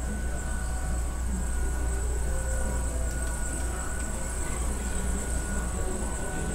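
Steady low mechanical rumble with thin, steady high-pitched whining tones over it.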